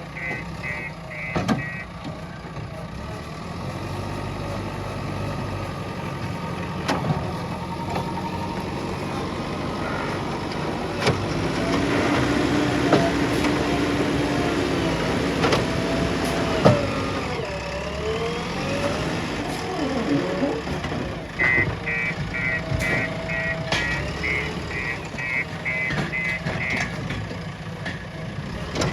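JCB 3DX backhoe loader's diesel engine running steadily, with its reversing alarm beeping about three times a second at the start and again for several seconds about two-thirds of the way through. A few sharp metallic knocks come from the machine's working, the loudest just past the middle.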